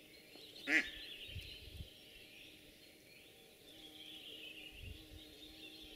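Hen decoy duck held in the hand giving one short call about a second in, against faint distant songbirds. A few soft low thuds come around the middle and near the end.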